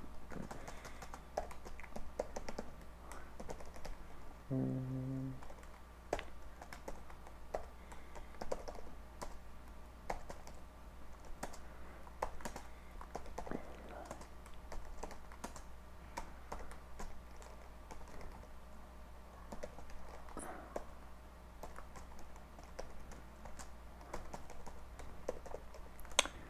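Typing on a computer keyboard: irregular runs of key clicks as a line of code is entered, over a steady low electrical hum.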